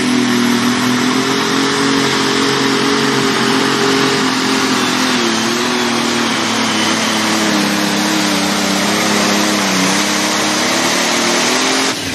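Pulling tractor's diesel engine running flat out under the load of a weight-transfer sled. It is loud and steady, and its pitch sags in the second half as the sled bogs it down. The sound drops away suddenly at the end as the run finishes.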